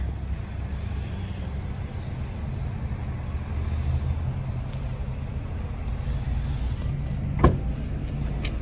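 A steady low rumble, with a sharp click about seven and a half seconds in and a fainter one near the end as the rear liftgate handle of a Chevrolet Equinox is pulled and its latch releases.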